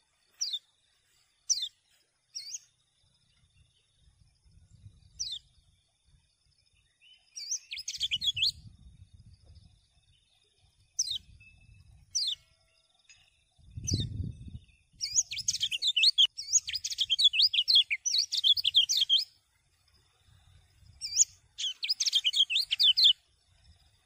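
Kecial kuning, a small yellow white-eye, singing: single sharp chirps that drop in pitch, then bursts of rapid high warbling song. The longest burst lasts about four seconds, past the middle, and another comes near the end.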